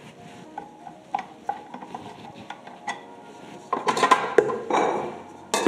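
Metal clinks and knocks from a stand mixer's stainless-steel bowl and dough hook being handled as the mixer is lowered. The clatter comes in scattered taps, with a louder cluster a little under four seconds in and a sharp knock near the end.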